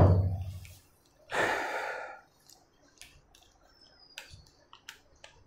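A short low thud right at the start, then a breath exhaled about a second and a half in, followed by a few faint clicks of whiteboard markers being handled.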